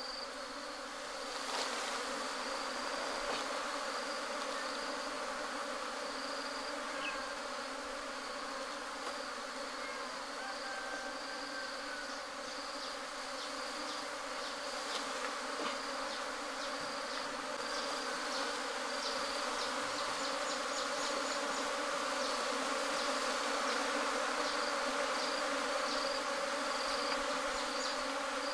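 A honey bee swarm buzzing in a steady, dense hum, the bees stirred up as their cluster on the branch is brushed by hand into a hat.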